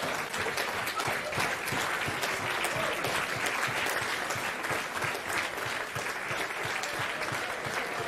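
Audience in a lecture hall applauding steadily, many hands clapping at once.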